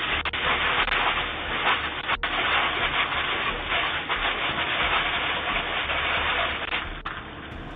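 Fire extinguisher discharging in a steady hiss, heard through a doorbell camera's microphone, which cuts off the high end; it stops near the end.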